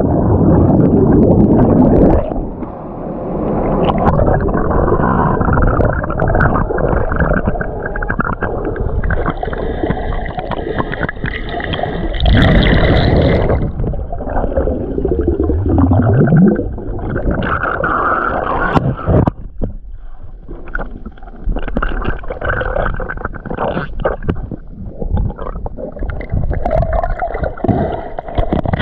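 Waterfall water churning and gurgling, heard muffled as if from under the water, with a few knocks and bumps against the microphone.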